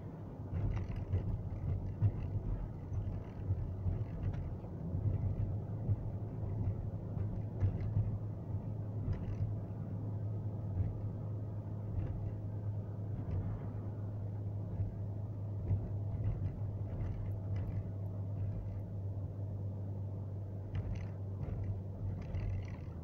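Road and engine noise of a moving car heard from inside the cabin: a steady low rumble, with scattered light rattles and knocks.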